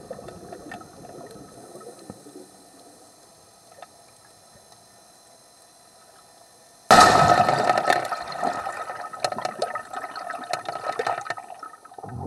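Air bubbles and water heard through an underwater camera: faint bubbling at first, then about seven seconds in a sudden loud rush of bubbles with many small pops that carries on to the end.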